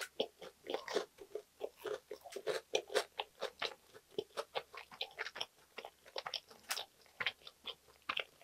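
Close-miked chewing of a mouthful of soft sandwich: a steady run of small wet mouth clicks and soft crunches, several a second.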